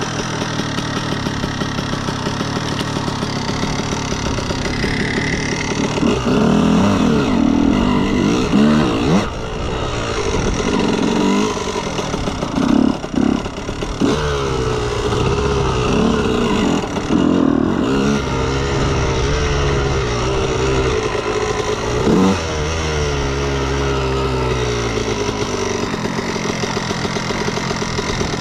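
2003 Honda CR125R's 125 cc two-stroke single-cylinder engine running steadily at first, then revving up and dropping back again and again from about six seconds in.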